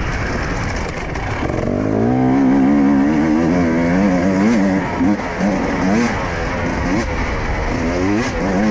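Husqvarna enduro motorcycle engine running under load as it is ridden. The throttle opens about two seconds in and the pitch rises, then it keeps rising and falling with repeated throttle changes, climbing again near the end.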